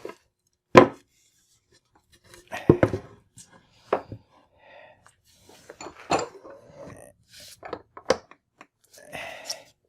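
Wooden workpiece and hand tools being handled on a workbench: a sharp wooden knock about a second in, then scattered clunks, clicks and short scrapes as the piece is turned over and set down.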